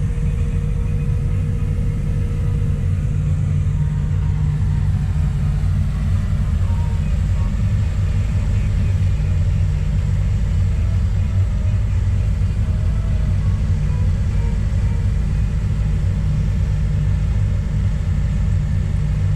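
Kobelco SK200 hydraulic excavator's diesel engine running steadily, a dense low rumble.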